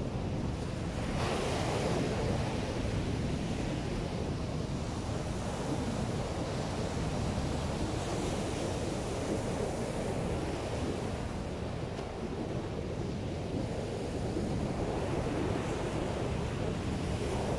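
Ocean surf breaking on a sandy beach, a steady rushing wash with a louder surge about a second in, mixed with strong wind buffeting the microphone.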